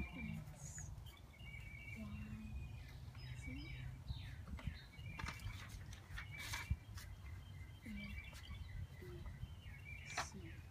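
Birds chirping in short, repeated calls over a low, steady rumble of outdoor background noise, with scattered faint rustles and taps of paper and pencils.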